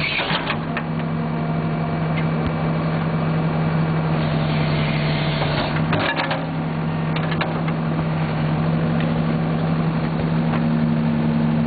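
Backhoe loader's diesel engine running steadily while the rear hydraulic arm and bucket work, with a few sharp metallic clanks, the loudest about six seconds in.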